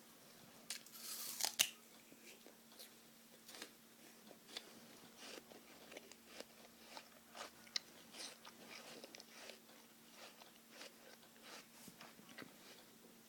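A person chewing raw apple: a run of small crisp crunches and wet mouth clicks, with a louder crunch about a second and a half in.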